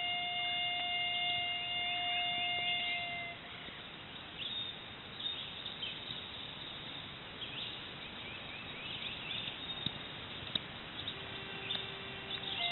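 A long held note of the music ends about three seconds in. Then comes outdoor background noise with scattered short bird chirps.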